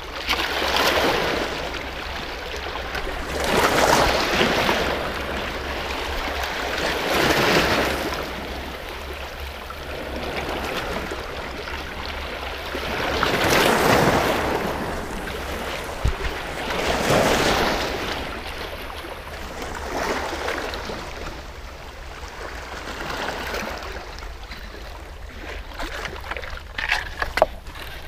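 Sea waves washing against rocks, the hiss of the surf swelling and fading every three to four seconds. A few sharp clicks near the end.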